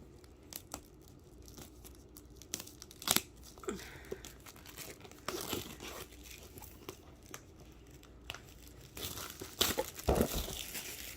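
Cardboard shipping box being handled and pulled open by hand: irregular tearing and crinkling of the packaging with scattered sharp knocks and scrapes, loudest about three seconds in and again near the end.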